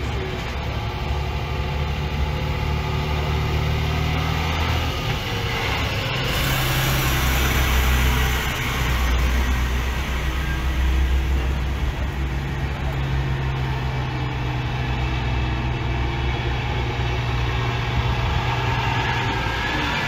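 Diesel engines of semi tractor-trailer race-team haulers running at low speed as the trucks roll past one after another, a steady low engine drone. A wide hiss comes in about six seconds in and lasts a few seconds.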